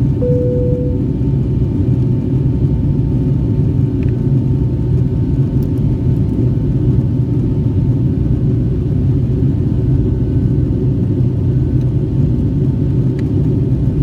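Steady cabin rumble of a Boeing 757-200 in flight: engine and airflow noise heard inside the cabin. A single chime tone dies away about a second in.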